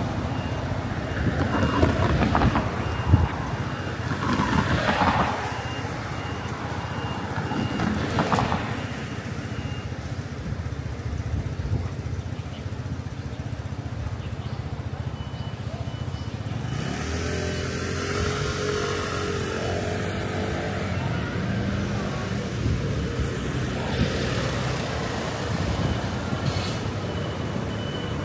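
Busy street traffic, with vehicles passing and engines running. A high electronic beep repeats at an even pace, drops out for a while in the middle, then comes back.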